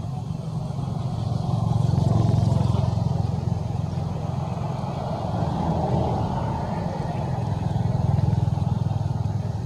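Motor vehicle engine running steadily, growing louder about two seconds in and again near the end.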